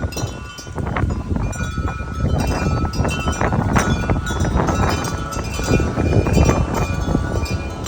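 Metal wind chime clanging and ringing over and over as strong wind gusts whip it, with loud wind rumble buffeting the microphone.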